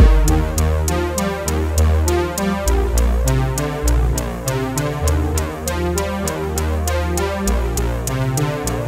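Electronic background music with a steady drum-machine beat, quick ticks about four a second over a shifting synth bass line.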